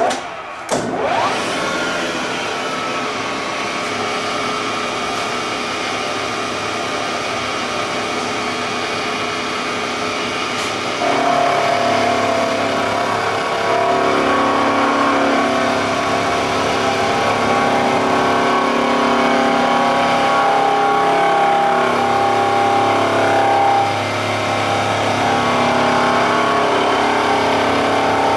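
Acer Ultima 3VK knee mill starting up with a sudden clunk and a rising whine as the spindle spins up, then running steadily. About eleven seconds in the insert cutter bites into the part and the sound grows louder, with shifting ringing tones as it cuts.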